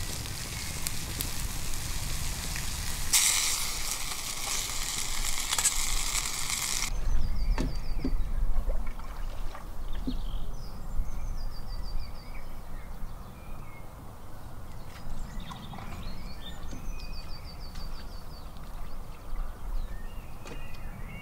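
Bacon, sausages and black pudding sizzling in a frying pan over a wood fire, the hiss growing louder about three seconds in and stopping abruptly about seven seconds in. After that, quieter riverside ambience with birds trilling and a low rumble.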